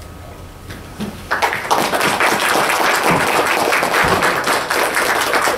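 Audience applauding, starting about a second in: many hands clapping together.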